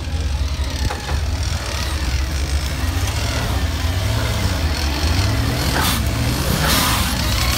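Off-road 4x4 truck engine running, its revs climbing and easing off about halfway through.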